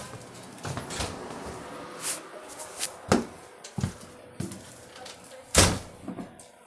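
Irregular knocks and thumps of a hand-held phone being carried and handled indoors, with one loud thump about five and a half seconds in.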